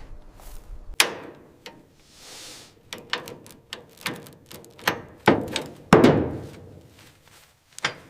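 Hand tools knocking and clinking on metal parts during workshop disassembly: a string of irregular sharp knocks of varying loudness, with a brief soft hiss about two seconds in.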